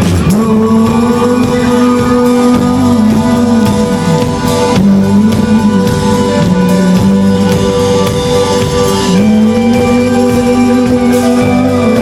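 A rock band playing loud live music in a concert hall: guitars and drums, with a sustained melody line that slides between held notes.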